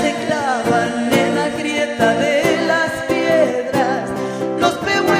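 A folk song: a singing voice holding and bending long notes over instrumental accompaniment.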